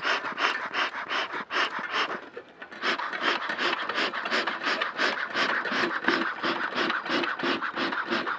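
Beekeeper's smoker bellows pumped rapidly, about four puffs of air a second with a brief pause about two seconds in, fanning the freshly lit paper and pine needles to get the smoker going. In the second half each puff carries a low tone.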